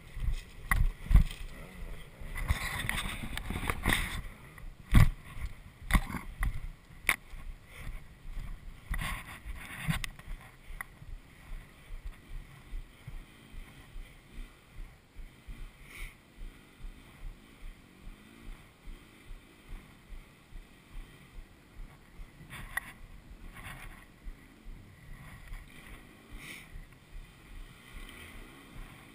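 Enduro motorcycle riding a rough dirt trail, its engine muffled under wind on the microphone. Loud knocks and rattles from the bike hitting bumps fill the first ten seconds, then a steadier regular pulsing about twice a second.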